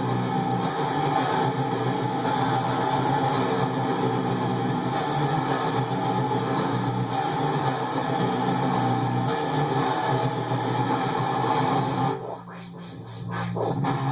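Instrumental metal played on a heavily distorted ESP/LTD M17 electric guitar, a dense steady wall of sound. Near the end it breaks off suddenly into a quieter, sparser passage of separate hits before building back up.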